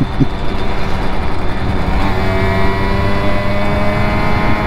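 Simson moped's single-cylinder two-stroke engine running while riding, under heavy wind and road noise; about two seconds in its tone comes through more clearly and rises gently.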